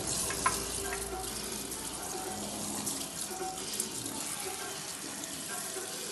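Water running steadily from a salon shampoo basin's hand sprayer onto hair and into the basin.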